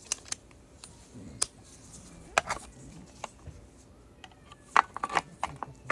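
Scattered light clicks and taps of hand tools and metal parts being handled, about eight or ten separate strikes at uneven intervals with no power-tool motor.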